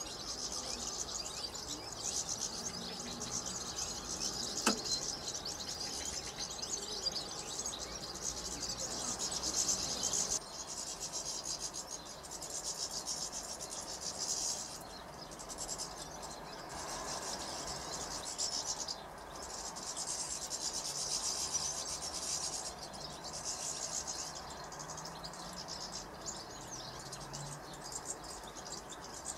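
A flock of European goldfinches twittering: a continuous high-pitched tinkling chatter from many birds at once, with short lulls. A single sharp click comes about five seconds in.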